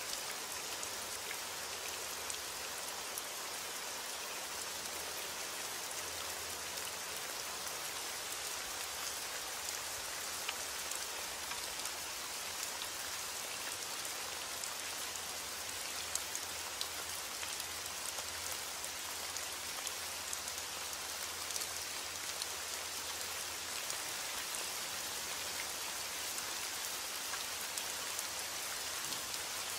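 Steady rain falling, an even hiss with scattered sharper ticks of single drops.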